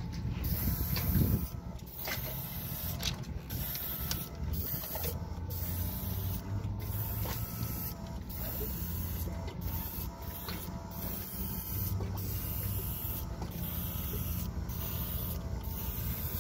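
Small battery-powered air compressor running steadily while a Viper Pro X trigger airbrush sprays primer with a steady hiss; the airbrush is shooting well on the small repair.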